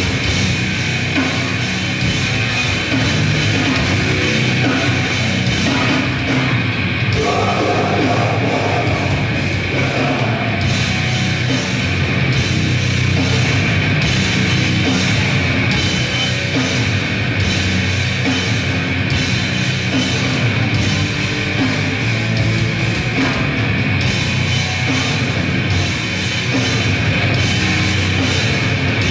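Grindcore band playing live: fast pounding drums under heavily distorted guitar and bass, loud and dense, with a shouted vocal line briefly about seven seconds in.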